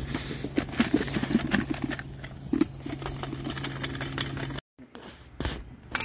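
Dirt and small stones crunching and scraping as soil is filled in by hand, over a steady low mechanical hum. Both cut off suddenly about four and a half seconds in, and after that there are only a couple of soft knocks.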